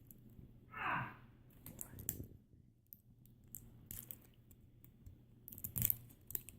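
Soft scattered clicks and crinkles of plastic toy packaging being handled and peeled open, with a denser burst of crinkling near the end.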